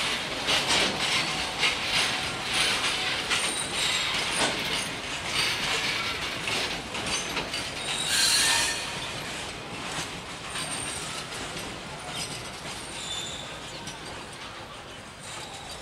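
An Indian Railways express of LHB coaches running on the track: wheels clattering over rail joints, with brief high wheel squeals and a loud hissing surge about eight seconds in. The sound grows fainter through the second half.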